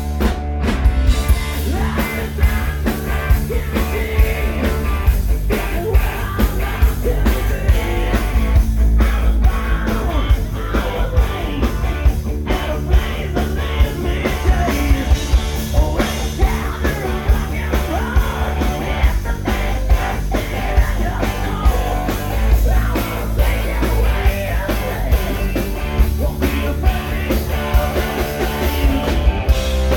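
Rock band playing loud hard rock, with a steady drum beat, heavy bass and a singer's voice.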